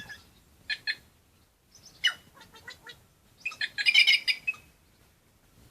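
A group of white-naped jays (cancão) calling in repeated bursts. The longest and loudest burst comes about three and a half to four and a half seconds in.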